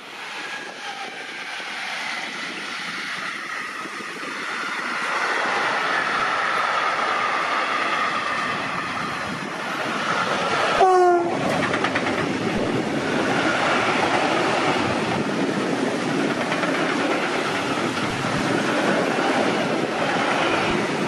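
DB Class 155 electric locomotive approaching and passing with a long train of hopper wagons, the wheels rolling loudly over the track. About eleven seconds in there is one short horn blast, a greeting from the driver.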